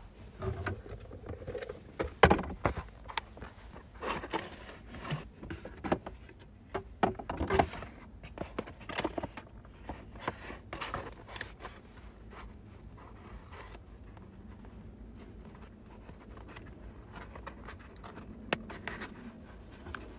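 Metal hand tools and parts clinking, knocking and scraping in an irregular clatter during work on the car, busy for about the first thirteen seconds, then quieter with a few faint clicks and one sharp click near the end.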